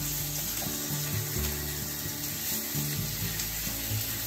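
Salmon fillets sizzling in hot vegetable oil in a frying pan as they are turned over with a spatula. Light background music plays underneath.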